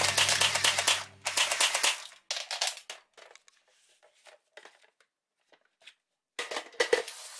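Clicks and knocks of a toy MG42 and its ammunition drum being handled. There are a few sparse, quiet clicks, then a louder cluster of clatter near the end. Background music fades out in the first two seconds.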